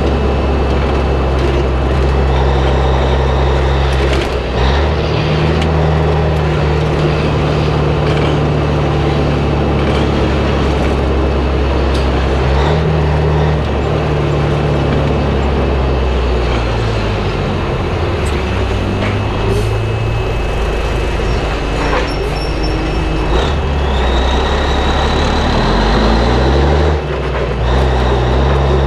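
1984 Peterbilt 362 cabover's diesel engine pulling an empty trailer through town. The engine note steps up and down as it goes through the gears, with scattered short knocks and rattles.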